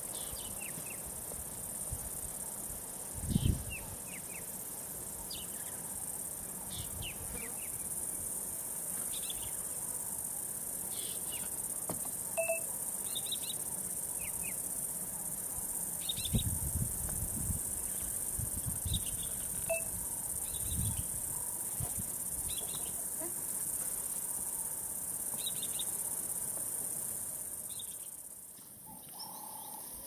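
High, steady insect drone with short bird chirps calling on and off over it. There is a dull low thump about three seconds in and a few more in the middle. The drone cuts off near the end.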